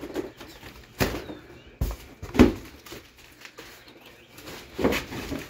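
Large cardboard shipping carton being cut open and pulled at: a few sharp cardboard thumps and flaps with rustling between them, the loudest about two and a half seconds in.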